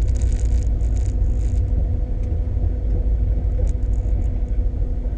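Old car's engine running at low speed, a steady low rumble.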